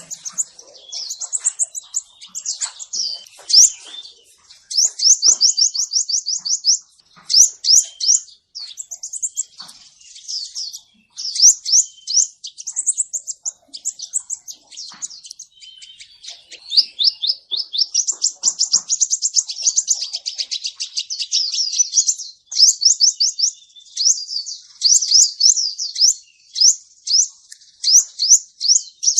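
Male sunbird ('kolibri ninja') singing: rapid, high-pitched trills and chip series, repeated with short pauses, in a recording used as a lure call for catching birds.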